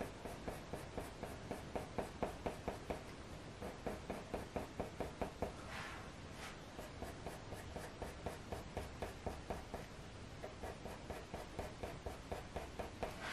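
Faber-Castell Polychromos coloured pencil scratching on smooth hot-press watercolour paper in quick, short, repeated strokes, about three a second, as fur is shaded in. There is a brief pause about six seconds in, then the strokes resume.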